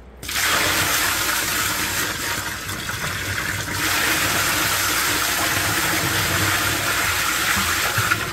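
Water poured from a five-gallon bucket into a plastic barrel, splashing onto a slurry of black sand concentrate. The gush starts just after the beginning, eases briefly about three and a half seconds in, then picks up again until just before the end.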